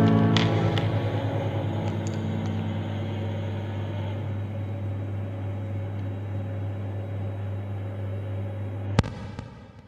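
The song's final chord ringing out and slowly fading over a steady low hum, with a sharp click about nine seconds in as it stops.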